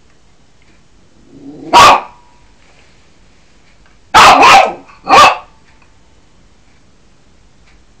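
Yorkshire terrier barking loudly: one short bark about two seconds in, then three more in quick succession a couple of seconds later.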